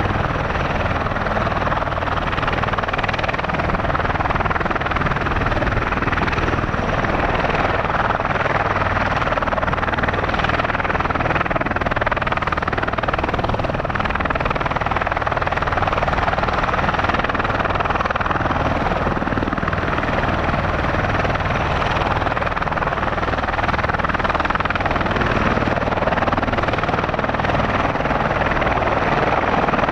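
Bell Boeing V-22 Osprey tiltrotor running with its two Rolls-Royce T406 turboshaft engines and proprotors turning: a loud, steady turbine rush over a low rotor beat.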